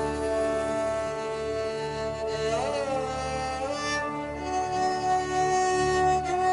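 Ambient music of long held tones; the notes slide together to a new chord about two and a half seconds in.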